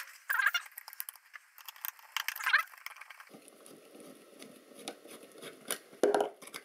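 A screwdriver working on a small metal-framed electronics module as it is handled, making scattered clicks, rattles and short metallic scrapes, busiest in the first half.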